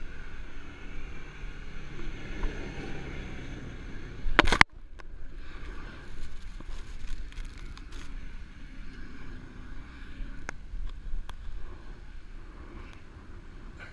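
Toyota Tundra pickup's engine running at a distance as it drives across sand, mixed with wind and handling noise on the microphone. About four and a half seconds in there is a loud rustling burst, after which the sound drops abruptly and goes on quieter, with a few sharp ticks.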